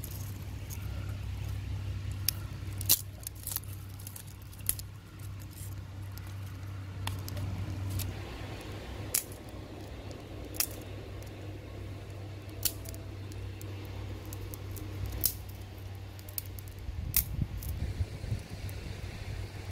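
Dry twigs crackling in a small, freshly lit stick fire: single sharp snaps every second or two, over a low steady hum that fades near the end.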